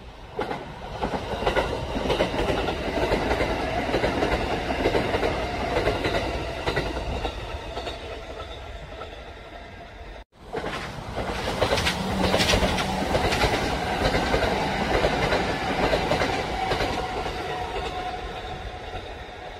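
Kintetsu electric trains passing at speed, wheels clattering over the rail joints (clickety-clack). There are two passes: the first cuts off abruptly about ten seconds in, and a second train's clatter swells up at once and fades slowly toward the end.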